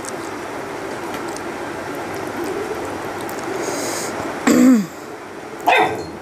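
A person clearing the throat twice, briefly, about four and a half seconds in and again just under six seconds in, over a steady background noise.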